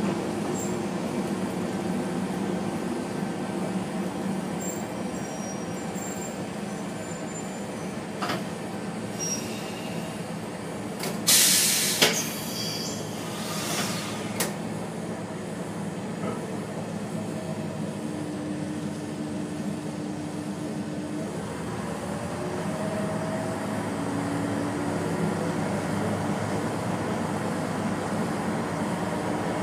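Diesel railcar running slowly, heard from inside the cab, with a steady engine drone and track noise. About eleven seconds in comes a loud hiss lasting about a second, with a short sharp burst just after. The engine drone grows stronger in the last third.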